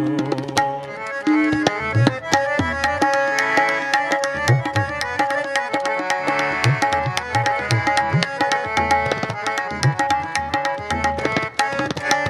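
Harmonium and tabla playing an instrumental passage of Sikh kirtan. The harmonium holds its melody notes over the tabla's quick strokes and recurring deep bass thumps.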